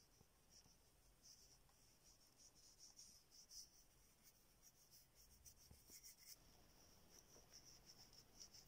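Near silence, with faint, irregular high ticks that come thicker in the second half.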